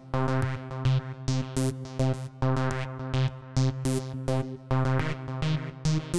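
Electronic background music: a synthesizer over a steady drum-machine beat.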